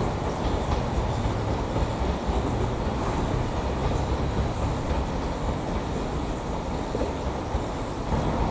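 Railway train moving past with a steady low rumble.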